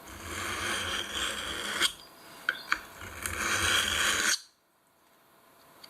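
Victorinox penknife blade scraped edge-first across a hard surface to deliberately blunt it: two long scraping strokes with a couple of sharp ticks between them, cutting off suddenly about four seconds in.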